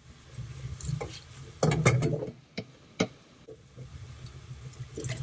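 Dishes being washed by hand at a small sink: a sponge scrubbing a blue enamelware pot, with clinks and knocks of dishware, a cluster of clatter about two seconds in and a sharp knock about three seconds in, over a steady low hum.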